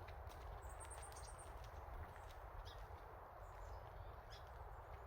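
Faint forest ambience with a steady low rumble, and a short run of faint high bird chirps about a second in.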